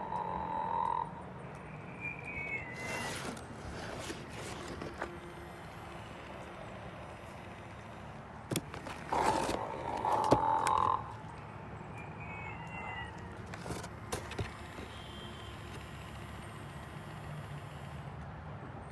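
Sing & Snore Ernie plush toy's sound box playing its recorded snoring: a snore followed by a short whistle, repeated twice about ten seconds apart.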